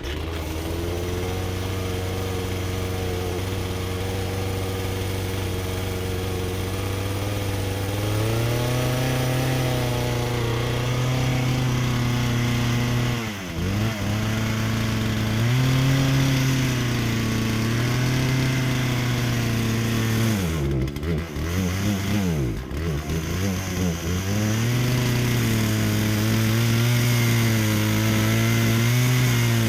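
Chainsaw running steadily, then revving higher about 8 seconds in. Its pitch sags and recovers several times as it bogs down under load in the cut.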